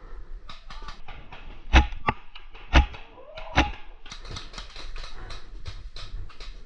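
Paintball markers firing: three loud, sharp pops about a second apart, followed by a rapid run of fainter pops, about three a second, in the second half.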